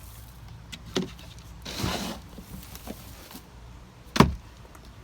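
A knock, a short scraping rustle, then a loud thump about four seconds in: a potato-growing bucket and its soil being handled and set down.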